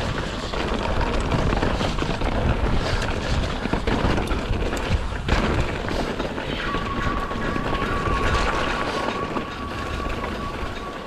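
A mountain bike ridden fast over a rough trail: rumbling tyres, knocks and rattles from the bike, and wind buffeting the microphone. A steady high-pitched tone joins about two-thirds of the way in.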